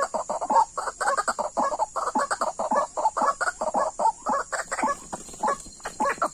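White-breasted waterhen (ruak-ruak) calls: a rapid, unbroken run of short, harsh clucking notes, about four or five a second.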